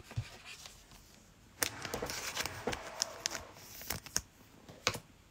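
Trading cards being handled and flipped through by hand: light rustling with quick clicks, starting about a second and a half in and thinning out to scattered clicks near the end.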